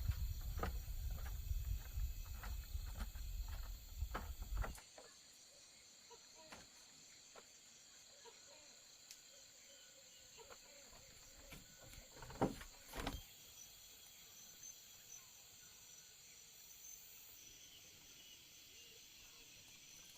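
Low rumbling noise with scattered clicks, which cuts off about five seconds in. Faint, steady, pulsing insect chirring runs underneath, and two dull thumps come a little past the middle.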